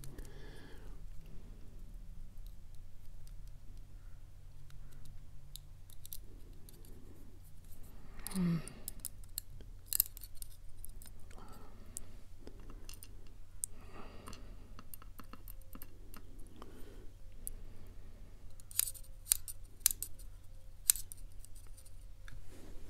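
Steel tweezers clicking and scraping in the pin chambers of a brass lock cylinder, trying to pull out springs that are stuck fast. Light metallic clicks come at irregular intervals, bunching up near the end.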